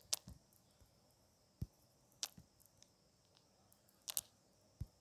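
A stylus tapping and scratching on a tablet screen while scribbling out a mark: about half a dozen short, scattered clicks, a few of them soft low thumps.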